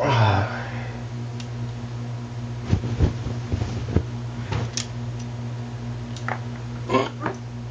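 Scattered, irregular clicks and knocks of small objects handled for foley sound effects, over a steady electrical hum.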